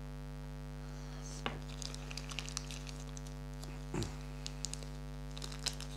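Hands handling small plastic-wrapped first-aid items, scattered light clicks and crinkles as a tube of antiseptic cream is taken out of its plastic wrapper, over a steady electrical mains hum.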